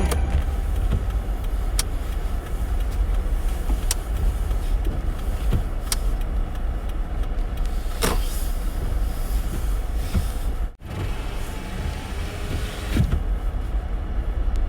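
Road vehicle noise: a steady low rumble with a few faint clicks, briefly cutting out a little before the end.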